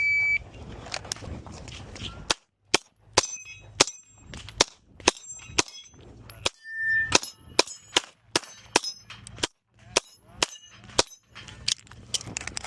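A shot-timer beep, then a fast string of airsoft pistol shots for about ten seconds, the BBs clanging on falling steel plates that ring briefly after the hits.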